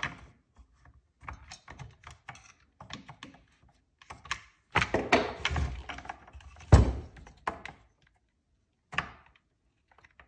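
Hands working a partly stripped Stihl MS261 chainsaw to pull its fuel line free: scattered clicks, rattles and knocks of plastic and metal parts, busiest about five seconds in, with one sharp thunk about seven seconds in, the loudest sound.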